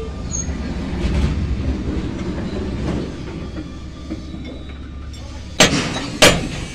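A steady low rumble, then two sharp, ringing blows of a hammer on steel, about five and a half and six seconds in.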